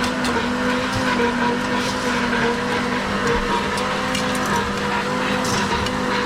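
A steady whining hum holding several fixed pitches that waver slightly, over a general noise haze.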